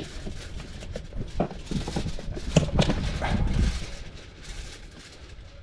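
Irregular knocks and scuffs over a low wind rumble on the microphone.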